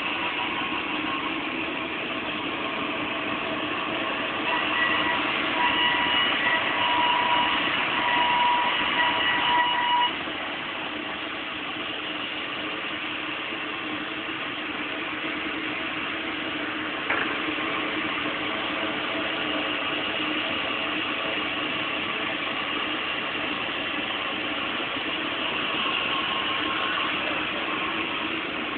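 Sawmill band saw running steadily, with a louder, higher whine from about five to ten seconds in and a single sharp click about seventeen seconds in.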